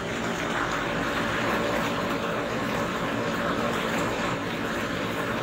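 Electric blower of an inflatable tube man, rated 550 watts, running steadily: a continuous rushing drone of air being forced up into the fabric tube to keep it dancing.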